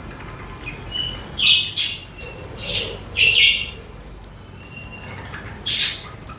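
Budgerigars chirping and squawking: a cluster of short harsh calls in the middle and another near the end, with a few brief thin whistles between them.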